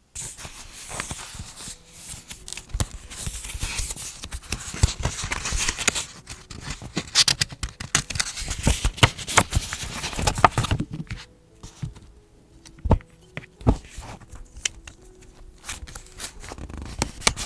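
Paper being handled for journaling: dense rustling and crinkling with many small clicks for about ten seconds, then quieter, with scattered separate taps and clicks.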